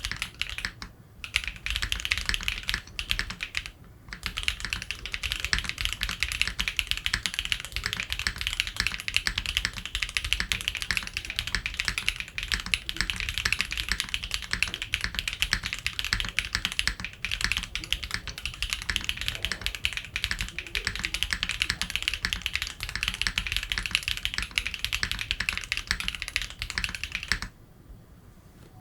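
Typing on a Wilba.tech Salvation 60% mechanical keyboard with SWK Yang switches, an FR4 plate and PBT keycaps: a dense, fast run of key clacks, with short pauses about a second and about four seconds in, stopping shortly before the end.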